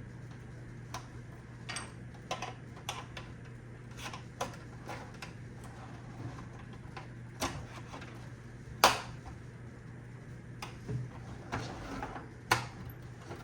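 Irregular clicks and taps of hard plastic as the parts of an iRobot Roomba 690 robot vacuum are handled and pried apart, with one sharp louder click about nine seconds in. A low steady hum runs underneath.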